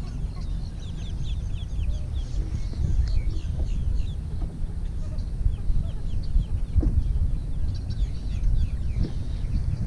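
Wind buffeting the microphone with a low rumble, over many birds calling in short, quick, falling chirps.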